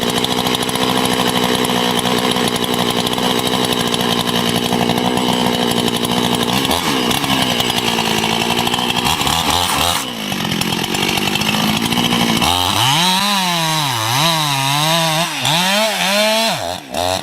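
Chainsaw running at high, steady revs, then from about three-quarters of the way in its engine speed drops and climbs repeatedly, about once a second, as the throttle is worked.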